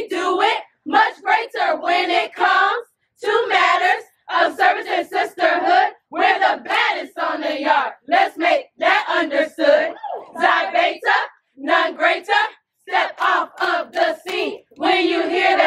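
Group of sorority women chanting in unison, loud rhythmic chanted phrases separated by short breaths.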